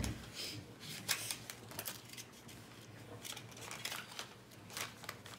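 Faint, scattered small clicks and plastic rustles as swim goggles are taken from their plastic packaging and handled.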